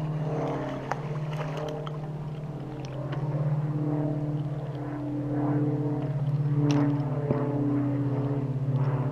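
Steady engine drone with a pulsing low hum and a few overtones. A few short clicks and rustles come from a small fish being landed and handled near the end.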